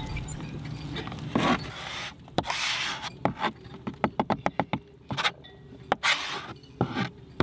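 Putty knife scraping and spreading thick epoxy paste over the wooden deck core, in quick, repeated short strokes with small clicks. A low steady rumble fills the first two seconds.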